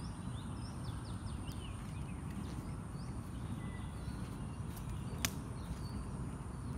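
Birds chirping outdoors, short quick calls that are busiest in the first two seconds and then scattered, over a steady low background rumble. A single sharp click comes about five seconds in.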